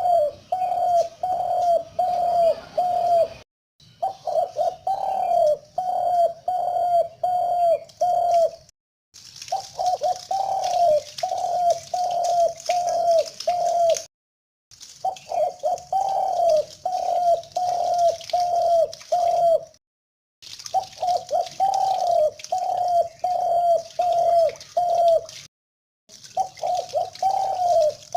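Spotted dove cooing: phrases of six or seven short coos, the first a little longer, repeated about every five seconds with brief silent gaps between them.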